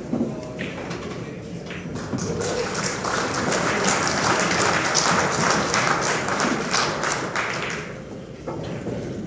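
A few sharp clicks of pool balls striking in the first two seconds, then a crowd clapping in a large hall from about three seconds in, fading out near the end.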